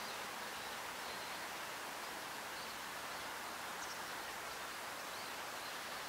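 Steady outdoor background hiss, even and unchanging, with a few faint, short, high chirps scattered through it.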